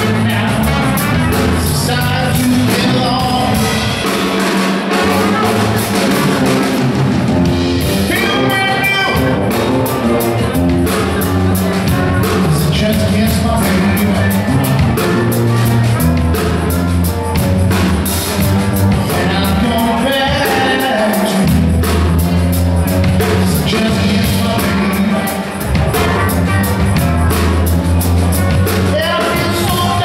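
Live New Orleans-style funk band playing an instrumental passage: trumpet carrying the lead over electric bass, a drum kit with a fast, even cymbal beat, keys and guitar.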